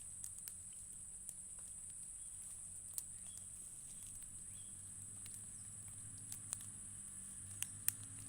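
Faint outdoor background: a steady high-pitched hiss with a low hum beneath, broken by a few small clicks and taps, the sharpest about three seconds in and near the end.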